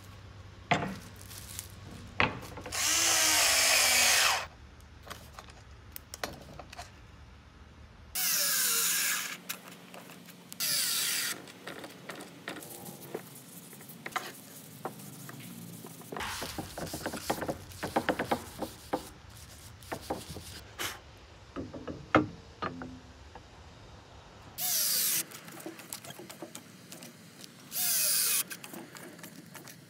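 Small cordless electric screwdriver driving screws in about five short runs of one to two seconds each, with scattered knocks and clicks between them.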